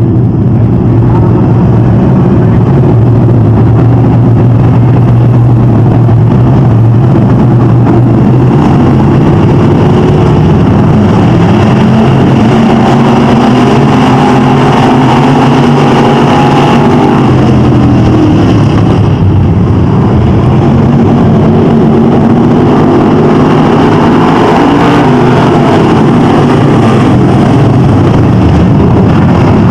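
A pack of dirt-track stock cars racing together, several engines running hard at once. Their pitch rises and falls as the cars pass and go around the track, and the whole thing is very loud.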